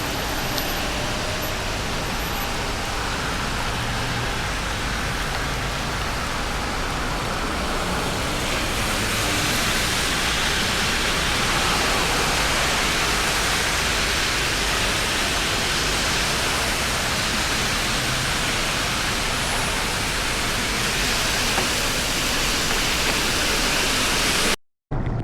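Steady rushing noise of wind and wet road on a small action camera's microphone while travelling in the rain, with a brief dropout near the end.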